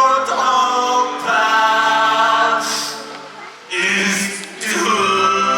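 A choir singing long held notes, dropping away briefly about three and a half seconds in before the voices come back in.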